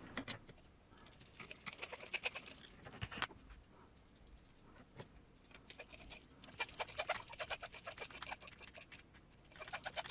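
Faint bursts of rapid small clicks and ticks, in three spells of about two seconds each with a few single knocks between them, from small screws, parts and hand tools being handled while fastening parts to the chassis.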